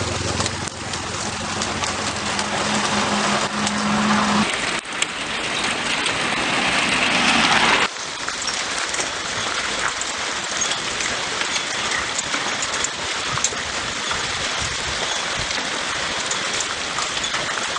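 Hail pouring down, a dense steady clatter of hailstones striking pavement and cars. A low steady hum sits under it for the first few seconds, and the sound changes abruptly about 5 and 8 seconds in.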